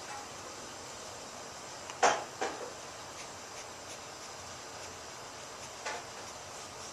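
A baby's sneeze about two seconds in: one short, sharp burst, with a smaller burst just after it and a softer one near the end.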